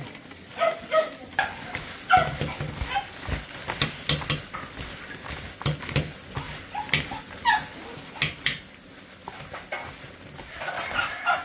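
Food sizzling as it fries in a pan, with scattered clinks and knocks of a utensil stirring it.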